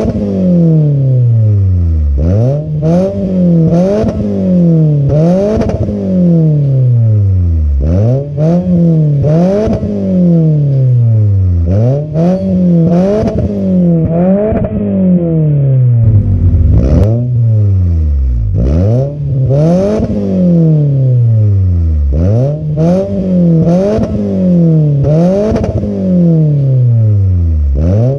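2010 Toyota Camry 2.4 L inline-four revved over and over in Park through an aftermarket catback exhaust. Each rev climbs quickly to around 5,000–5,500 rpm and falls back more slowly, about one every second or two, with short crackles at the top of many revs.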